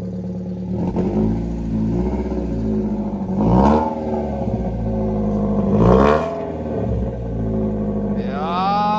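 BMW E36 318is four-cylinder engine running through a freshly welded, adapted exhaust, blipped twice, with the revs rising and falling each time, then revs climbing again near the end.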